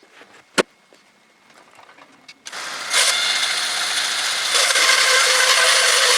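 A sharp knock about half a second in, then about two and a half seconds in a homemade horizontal bandsaw mill with an electric motor starts up suddenly and runs loud and steady, a steady hum joining in about four and a half seconds in.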